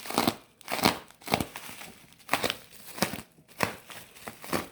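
Packing wrap crinkling and tearing in irregular bursts as it is pulled off a rifle by hand.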